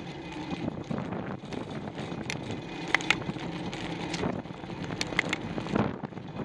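Bicycle being ridden: steady tyre and wind noise, with a few sharp clicks and rattles about three and five seconds in.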